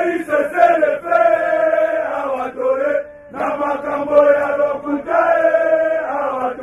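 A group of soldiers chanting together in men's voices, with long held notes and a brief break about three seconds in.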